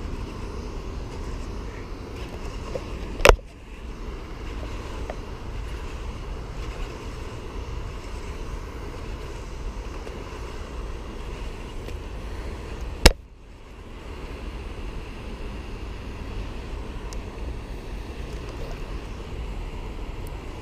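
Steady low rumbling handling and wind noise on a GoPro microphone as a hooked bass is reeled in on a baitcasting reel, broken by two sharp knocks, one about three seconds in and one about thirteen seconds in.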